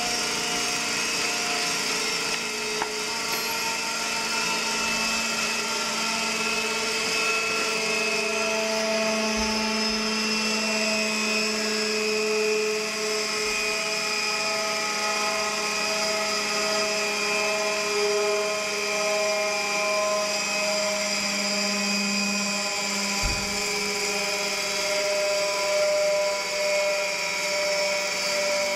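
Tubular centrifuge spinning at speed: a steady high-pitched mechanical whine made of several steady tones over a hiss.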